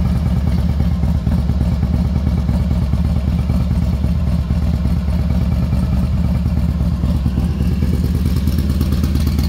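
2006 Harley-Davidson Night Train's Twin Cam 88B V-twin idling steadily through a Vance & Hines 2-into-1 Pro Pipe exhaust, with a loud, low, even lope.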